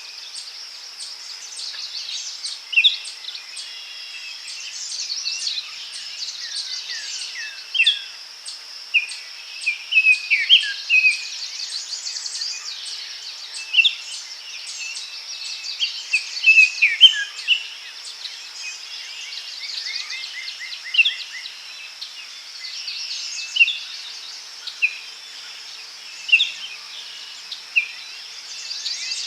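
Forest ambience: many birds chirping and whistling in short, overlapping calls over a steady high insect drone.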